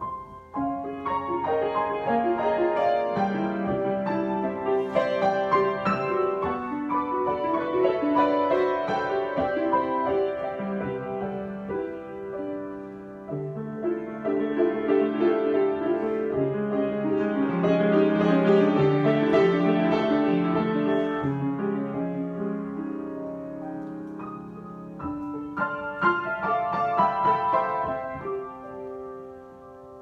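Grand piano played solo in a free improvisation, with dense chords and running notes. It swells loudest in the middle and eases off near the end.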